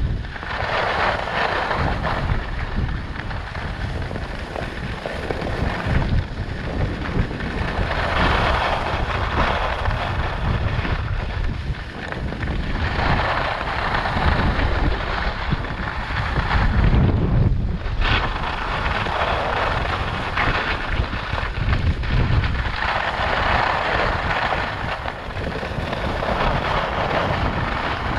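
Wind rumbling on the camera microphone at speed, over the hiss of Rossignol Experience 84 AI skis carving turns on groomed snow; the hiss swells and fades five times, every five or so seconds.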